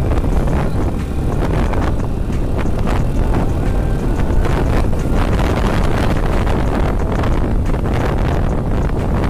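Steady riding noise on a motorcycle under way: wind buffeting the microphone over the bike's running engine.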